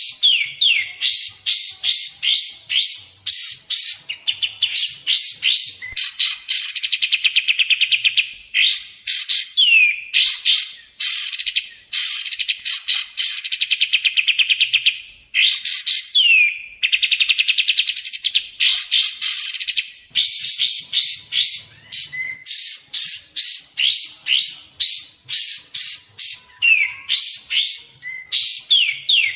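Kapas tembak songbird calling, used as a lure recording: fast strings of sharp, downward-sweeping chirps and rapid trills, repeated over and over with only brief gaps.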